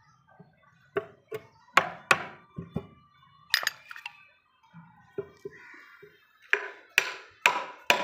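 Hammer striking a chisel chopping a mortise into a mahogany board: about a dozen sharp knocks in uneven groups, each with a brief ring.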